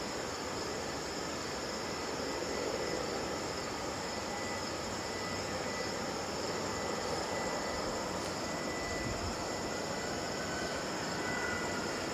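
Jet engines of taxiing airliners heard from a distance: a steady rushing hiss with a faint high whine that fades in and out.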